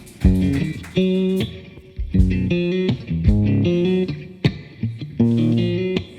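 A live rock band playing an instrumental intro: electric guitar picking a repeating chord pattern over bass guitar, with drum hits marking the rhythm.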